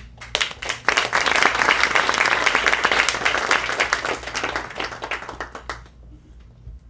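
Audience applauding: a dense patter of many hands clapping that swells within the first second and dies away at about six seconds.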